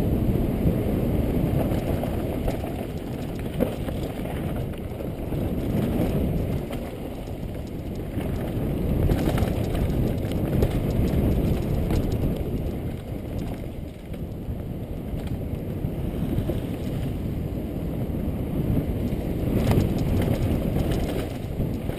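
Mountain bike descending at speed: wind buffeting the GoPro Hero 2's microphone over the rumble of tyres on a dirt forest trail. The bike rattles over bumps, with a few sharp clicks and knocks.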